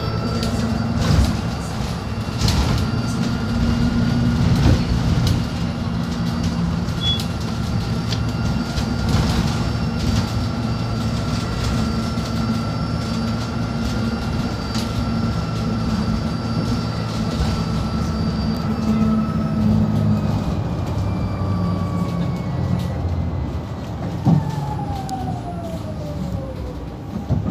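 Cabin sound of a Marcopolo Attivi Integral electric bus on the move. The electric traction motor's whine rises in pitch and holds as the bus gathers speed, then falls away as it slows near the end. Under it run road rumble and a few knocks and rattles from the body.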